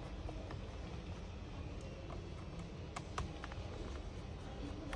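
A few light clicks and taps, the clearest a pair about three seconds in, from a small screwdriver and screws being worked out of a laptop's internal metal plate, over a faint steady low hum.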